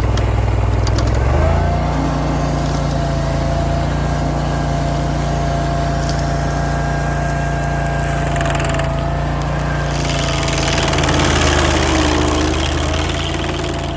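Barreto SG3630 stump grinder's gasoline engine running hard while the cutter wheel grinds a stump. The engine note dips and recovers about a second in, holds steady, then wavers under heavier load with added grinding noise past the middle.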